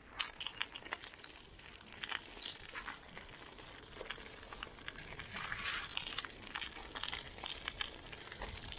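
Folding bike ridden along a gravel path: tyres crackling over the grit, with irregular small clicks and rattles.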